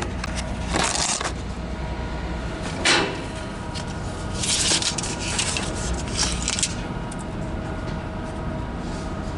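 Handling noise: several short rubbing and scraping scuffs, one about a second in, one near three seconds and a cluster in the middle, over a steady industrial hum.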